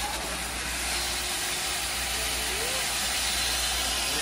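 A 1922-built 8620-class (Hachiroku) steam locomotive standing still and hissing steam steadily, with a low hum underneath.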